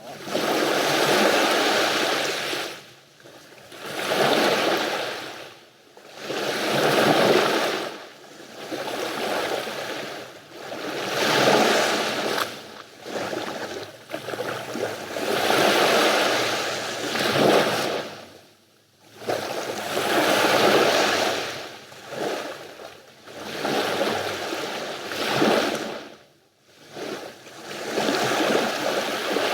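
Sea waves breaking and washing up the beach one after another. Each wave is a swell of noise that fades into a short lull every few seconds.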